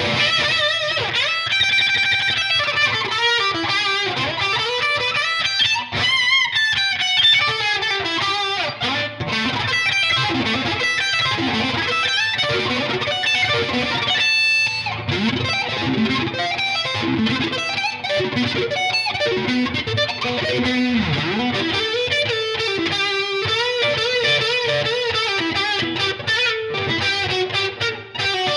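Sterling by Music Man JP100 electric guitar played with distortion: fast lead runs with string bends and vibrato, and a briefly held high note near the middle.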